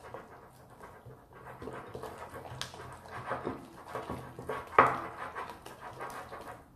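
Hands kneading and squeezing soft slime that has just had water worked into it in a glass bowl: irregular wet squelching and squishing, with sharp pops about two and a half seconds in and, loudest, near five seconds in.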